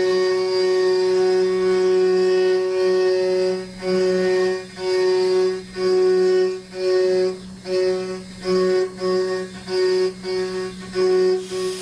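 3/16-inch two-flute AlTiN-coated carbide end mill at 11,200 rpm cutting steel on a CNC gantry router: a steady high-pitched ringing whine with overtones. About three and a half seconds in, the whine starts cutting in and out in short bursts, roughly twice a second.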